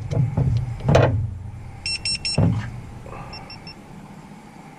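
A few handling knocks, then short electronic beeps: four quick ones about two seconds in and three fainter ones about a second later. These are typical of an FPV quadcopter's electronics sounding as a fresh battery is connected.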